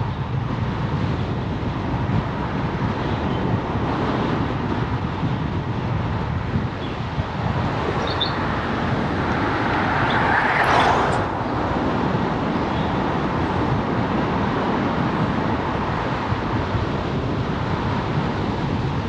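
Wind rushing over a GoPro's microphone on a moving bicycle, with road noise. About ten seconds in, a passing vehicle swells louder and then drops away sharply.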